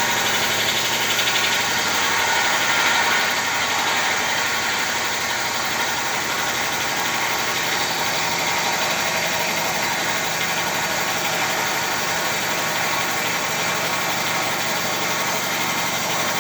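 5-axis CNC machine running: a steady, dense mechanical noise with many faint steady tones, swelling slightly a second or two in.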